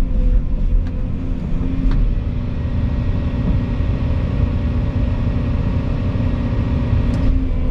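Volvo EC220 excavator's diesel engine running steadily: a low, even drone with a steady hum over it.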